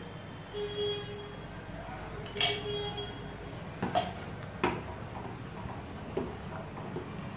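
A steel spoon stirring milk in a stainless steel pot, scraping and clinking against the sides: several sharp metallic clinks, the loudest about two and a half seconds in, with a low steady hum underneath.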